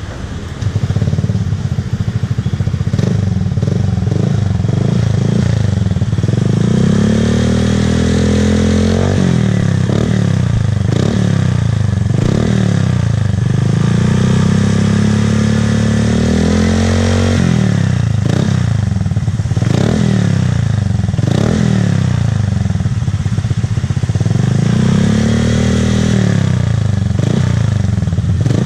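Honda Click 125i scooter's single-cylinder engine running through a Yoshimura Tri-Cone exhaust, idling, then revved again and again in short blips from about six seconds in, each rev rising and dropping back.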